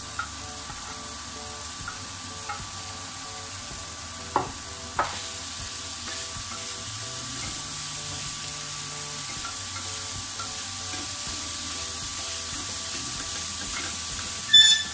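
Food sizzling as it fries in a frying pan, a steady hiss with a few sharp clicks as it is stirred. A ringing metallic clink comes near the end.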